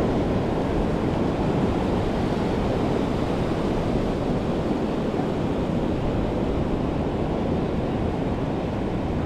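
Steady rush of sea surf with wind buffeting the microphone.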